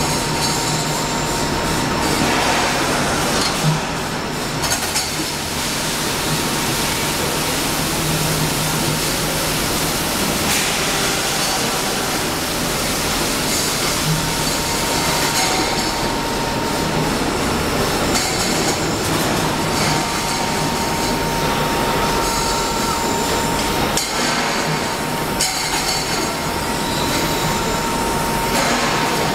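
CNC steel pipe cutting machine running steadily, a continuous loud mechanical noise with a thin steady whine and a few sharp clicks.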